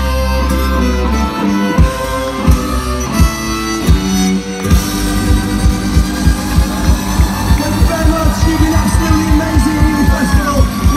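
A live folk-punk band plays loud through the PA, with electric guitar, bass and drums. A held low bass note and scattered hits give way, about five seconds in, to a fast, steady drumbeat, with sliding melody lines near the end.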